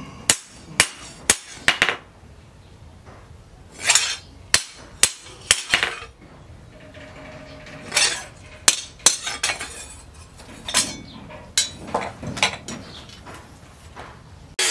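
Hand hammer striking a leaf-spring steel machete blade on a metal post anvil: sharp metallic blows in short irregular groups of three to five, about two a second, with pauses between groups.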